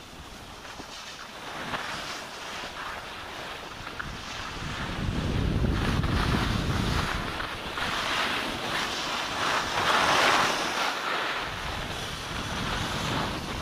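Skis hissing and scraping over packed snow, with wind buffeting the microphone. The rumble of wind is strongest about five to seven seconds in, and the scraping hiss is loudest around ten seconds in.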